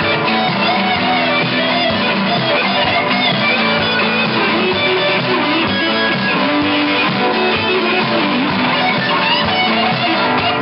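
Live rock band playing, led by electric guitar with quickly changing picked notes over a steady accompaniment.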